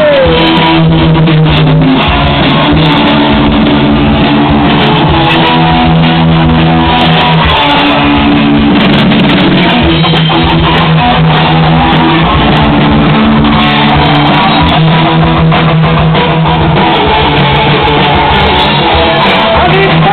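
Rock music: an instrumental passage of electric guitar and bass with held chords and no singing.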